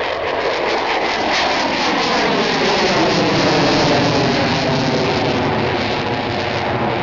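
Loud jet roar of a twin-engine Sukhoi Flanker-family fighter flying past overhead, with a falling sweep in its pitch as it goes by.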